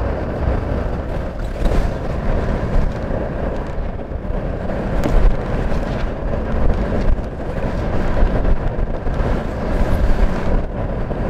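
Wind buffeting the microphone on the deck of a sailing ship under way, a steady deep rumble, with a few light knocks from sail cloth and rope being handled.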